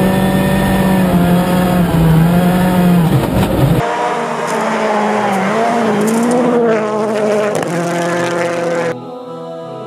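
Rally car engine at high revs, held steady for the first few seconds, then revving up and down as the car drives flat out on a snowy stage. The engine sound drops away suddenly near the end.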